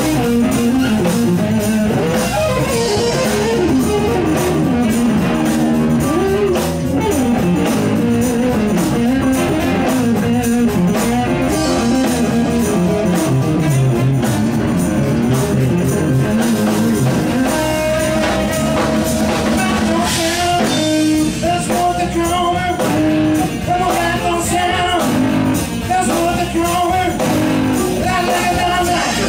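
Live blues-rock band playing, with a Stratocaster-style electric guitar to the fore.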